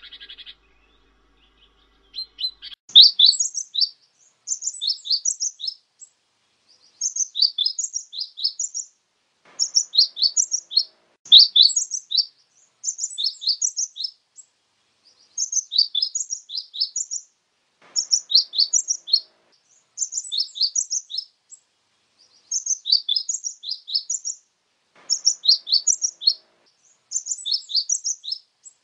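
Cinereous tit (glatik wingko) singing: repeated phrases of quick, high chirping notes, each about one to two seconds long with short pauses between, starting a couple of seconds in.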